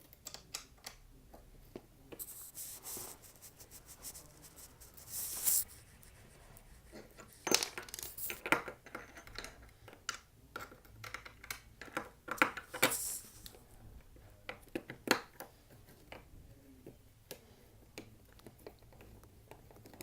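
Hand tools unscrewing skateboard truck bolts and nuts: scattered small metallic clicks and clinks, with a few short scraping bursts, thinning out toward the end.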